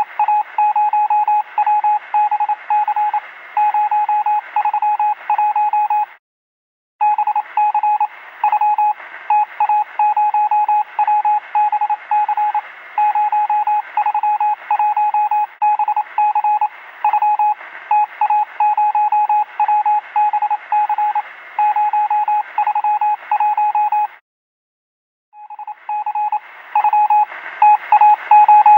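Electronic beeping: a single mid-pitched tone pulsing in quick, irregular bursts, Morse-code-like, with two brief breaks where it stops entirely.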